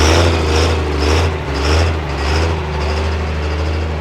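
Diesel pickup engine idling with a deep, steady rumble that swells and eases about twice a second.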